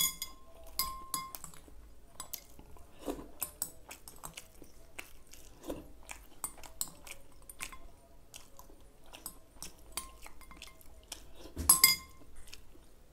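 Metal cutlery clinking and scraping against a glass bowl in many short, ringing strikes, with chewing between them. One clink about three-quarters of a second before the end is the loudest.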